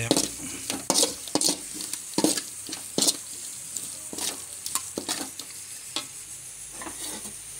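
Metal spoon and a steel vessel scraping and knocking against a metal kadai while a thick onion-tomato masala is stirred, with the masala sizzling in the oil underneath. The scrapes come irregularly, one or two a second.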